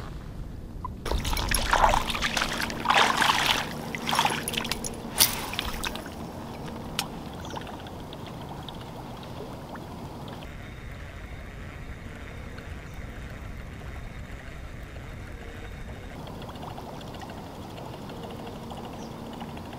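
Waders splashing through shallow stream water in a run of irregular steps, starting about a second in and stopping after a few seconds. After that the stream trickles and flows steadily.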